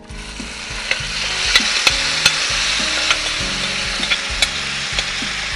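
Marinated taro (arbi) and small potatoes tipped into hot ghee and oil with fried onions, sizzling as the wet pieces hit the fat; the sizzle starts at once and swells over the first second, with a few sharp clicks against the pan.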